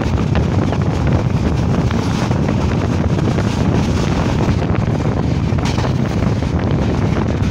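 Wind buffeting the microphone over the steady running noise of a passenger train moving at speed, recorded with the camera held out of the moving coach.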